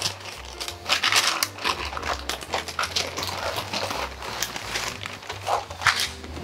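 Parchment paper crinkling and rustling as it is peeled off a rolled-out pie crust and set down.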